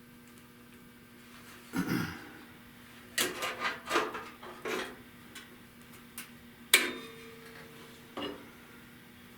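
Steel clanking and clinking as clamps and a sheet-steel patch plate are handled and set on a car's radiator core support: a handful of separate sharp knocks. The sharpest, past the middle, rings briefly.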